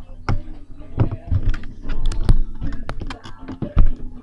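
Irregular clicks and knocks, several a second, from the camera being handled and swung about.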